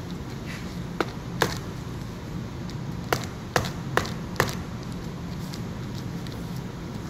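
A small hammer tapping the metal pivot rod of a car sun visor: six sharp taps, two about a second in, then four in a row about half a second apart, over a low steady hum.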